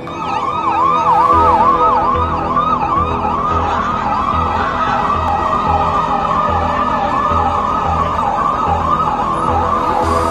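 Police vehicle siren in a fast yelp, its tone sweeping up and down about three times a second without a break.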